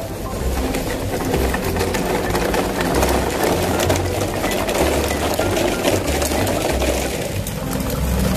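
Plastic toy trucks being pulled over gravel and rough concrete, their hard plastic wheels rattling and crunching as they roll, over background music.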